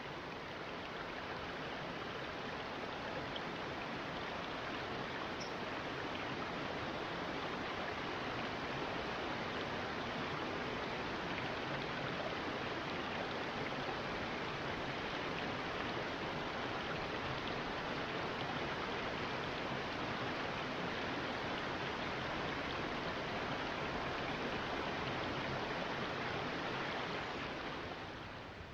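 Steady rushing of running water, an even hiss with no tone in it, easing down near the end.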